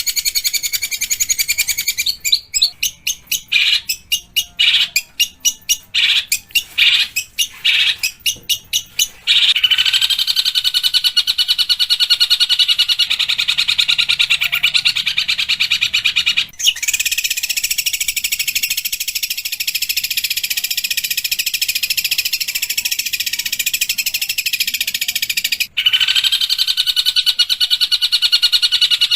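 Long-tailed shrike (pentet) singing harsh song. It begins as a run of separate sharp calls, about two a second, then turns into a continuous rapid chatter about nine seconds in, broken by two brief gaps.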